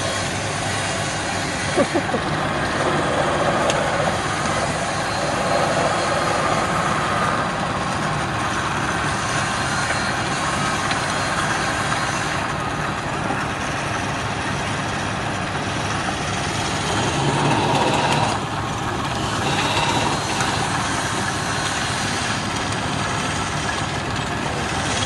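Wood lathe running while a hand chisel cuts into a spinning wooden spindle: a steady motor hum under the hiss and rasp of the cut, with a few sharp knocks about two seconds in.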